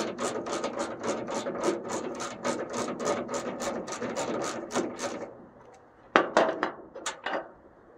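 Hand ratchet clicking quickly and evenly, about four to five clicks a second, as it turns the T45 Torx bolt on the tailgate cable. It stops about five seconds in, then come a few sharp metal clinks.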